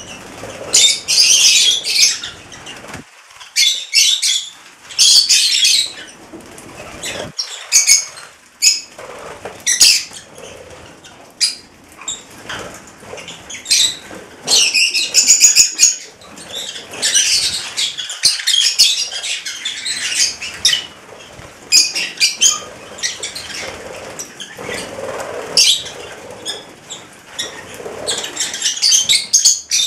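Flock of rosy-faced lovebirds on a seed tray, their wings flapping in repeated short bursts every second or two as birds flutter up and jostle for the feed.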